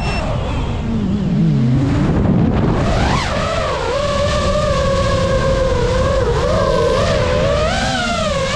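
Four brushless motors and propellers of a GEPRC Mark5 5-inch FPV quadcopter whining as the throttle changes: the pitch drops and rises again about a second in, climbs sharply near three seconds, then holds a steady, wavering whine.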